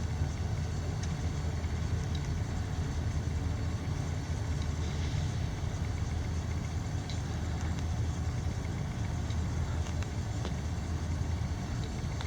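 A CSX freight train rumbling by: a steady low rumble with faint scattered clicks of the wheels on the rails.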